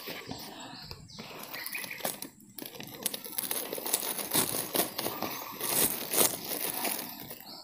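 Irregular rustling and crinkling as a plastic sack and leafy plants are handled, with many small clicks and scrapes.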